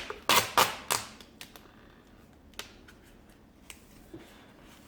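Duct tape being pulled off the roll in a few short, loud strokes in the first second, then a handful of light clicks and taps as it is handled and pressed around a plastic canister.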